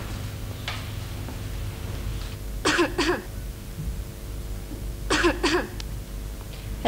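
A person clears their throat twice, about three seconds in and again about five seconds in, over a steady low hum.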